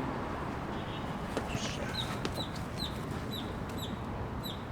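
A bird chirping: a series of about six short, high chirps, each falling in pitch, roughly two a second, starting about halfway through, over a steady background rumble.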